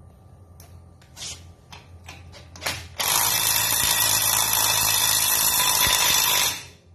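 A few light knocks, then a cordless power driver spins the propeller lock nut onto the outboard's prop shaft, running steadily for about three and a half seconds before stopping abruptly.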